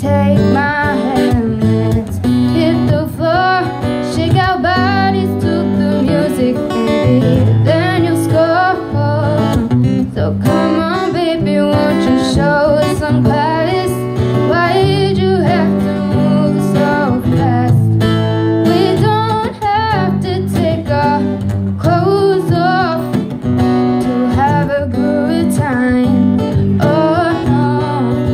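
A woman singing a pop song live into a microphone, accompanied by an acoustic guitar, both amplified through a stage PA.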